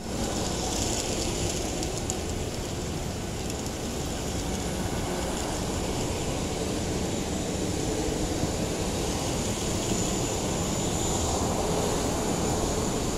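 Steady jet aircraft noise on an airport apron: a continuous rushing rumble with a thin high whine on top, which grows a little stronger about ten seconds in.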